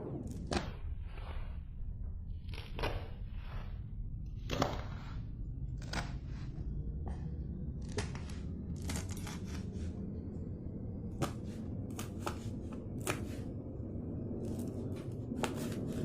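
Kitchen preparation sounds: a series of irregular short knocks and scrapes, about one a second, over a steady low hum.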